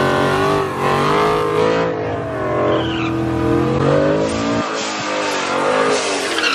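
High-horsepower drag-racing Ford Mustang doing a burnout: the engine is held at high revs with a wavering pitch while the rear slicks spin and squeal on the pavement.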